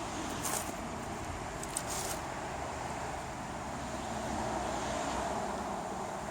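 Steady road traffic noise that swells gently to a peak about five seconds in, as if a vehicle passes, with a few brief rustles or footsteps in the first two seconds.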